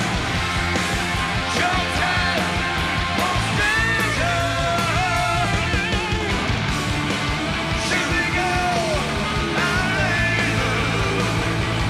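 Hard rock band playing live, with distorted electric guitars, bass and drums under a strained, shouted lead vocal.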